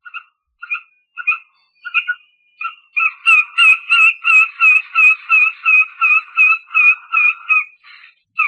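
Stork calling: a series of short pitched notes, a few spaced out at first, then about three seconds in a fast, regular run of about three notes a second, each with a sharper clack at its start.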